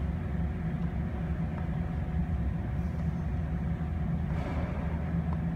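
Steady low rumble and hum of running heavy machinery, such as an idling engine or plant equipment, unchanging throughout.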